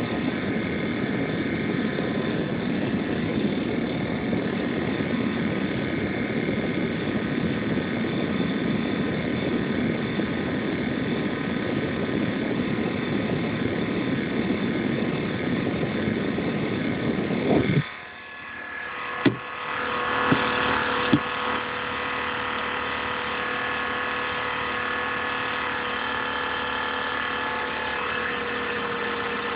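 INSYS GameForce gaming laptop's cooling fan running with a loud, rough strange noise, the fault the owner is showing, distorted by a phone microphone. About two-thirds of the way through the rough noise cuts out suddenly, a few sharp clicks follow, and a quieter, steadier whir with a faint whine carries on.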